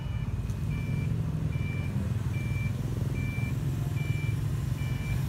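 A vehicle's reversing alarm beeping at a steady pace, a little more than once a second, over the low, steady running of its engine.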